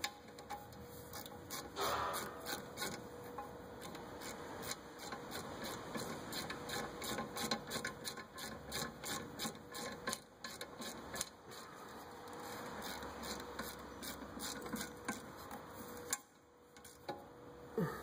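Socket ratchet clicking in rapid, uneven runs as a brake caliper bolt is run in, stopping about two seconds before the end.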